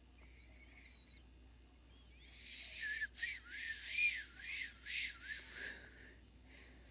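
A person whistling a breathy, warbling tone close to the microphone, the pitch wavering up and down about three times a second. It starts about two seconds in and stops after about three and a half seconds.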